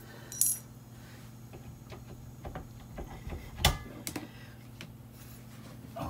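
Metal tools and fittings clinking and tapping while a refrigerant piercing valve and hose fittings are handled on a refrigerator's copper line. There is a bright ringing clink about half a second in, a scatter of small taps, and the loudest sharp clink just past midway, all over a steady low hum.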